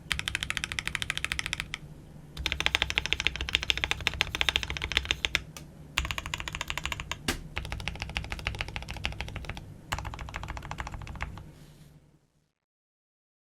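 Typing sound test on a KBD67 Lite R3 65% mechanical keyboard with Gateron Black Ink V2 linear switches on a polycarbonate plate: fast runs of keystrokes in several bursts with short pauses between them. The typing fades out about twelve seconds in, and the sound cuts to silence.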